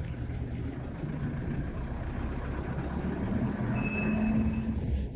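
Mitsubishi L200 pickup driving on a rough track, its engine and running gear rumbling steadily, with a short whine about four seconds in.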